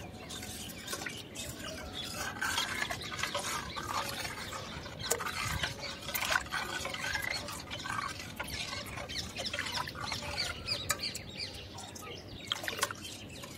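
Milk being stirred in a steel kadhai, with a steel spoon and a whisk clinking and scraping against the metal pan in a run of irregular small clicks. Birds chirp in the background.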